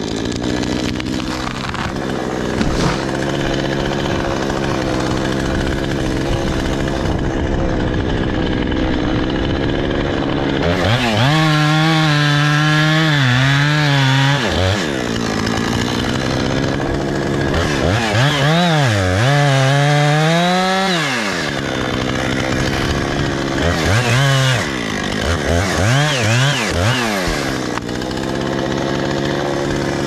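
Small chainsaw running steadily, then revving under cut in three spells, a third of the way in, past the middle and near the end. Its pitch climbs and sags as the chain bites into and clears a felled aspen's trunk and limbs.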